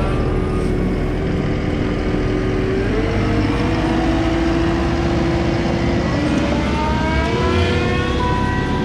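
Heavy equipment running steadily, with a whine whose pitch steps up and down and then settles near the end.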